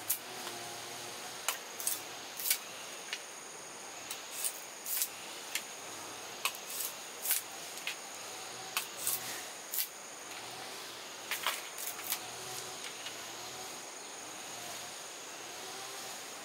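Irregular sharp clicks and snaps, sometimes several a second, over a steady high hiss with a thin high tone; the clicks thin out after about twelve seconds.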